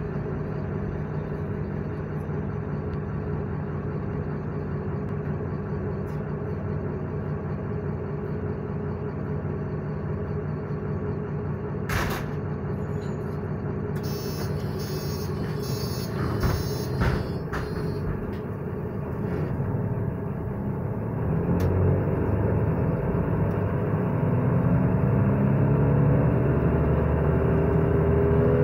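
Mercedes-Benz Citaro city bus engine idling, heard from inside the passenger cabin. About twelve seconds in there is a short sharp sound, then a beeping door warning for a few seconds with a couple of thumps as the doors close. From about twenty seconds the engine rises in pitch and gets louder as the bus pulls away.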